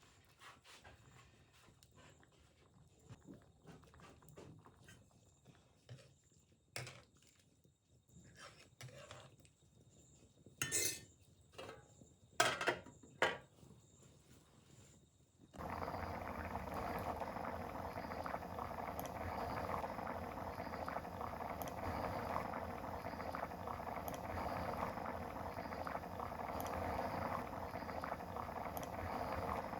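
Scattered light clinks and knocks of kitchen utensils and dishes, a few louder ones a little past ten seconds in. Then a sudden change about halfway through to the steady bubbling of something boiling in a pot.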